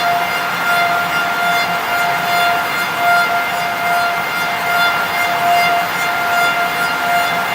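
Bacci T4MO multi-spindle CNC lathe machining curved wooden chair parts: the spindles give a steady high-pitched whine at one unchanging pitch, over the hiss of cutting wood.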